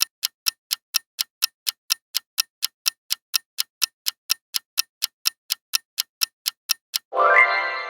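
Countdown-timer ticking sound effect, a clock tick about three times a second. About seven seconds in the ticking breaks for a louder, pitched sound effect of about a second with a rising start.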